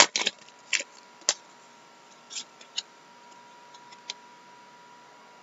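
Foil pack wrapper rustling briefly at the start, then a handful of light, sharp clicks as trading cards are handled and flicked through by hand, with a faint steady tone underneath.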